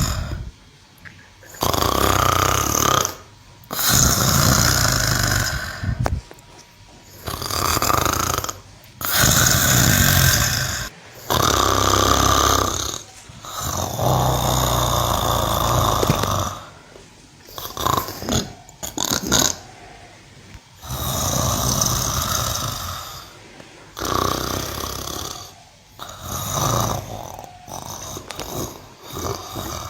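A cow snoring: a long, noisy snoring breath about every two to three seconds, with quieter pauses between.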